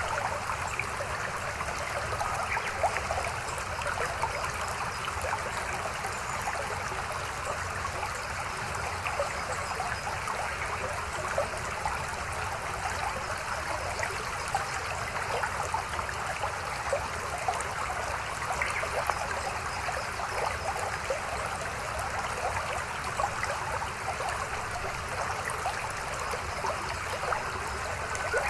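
A mountain stream flowing over rocks: a steady babbling rush with many small splashes and trickles.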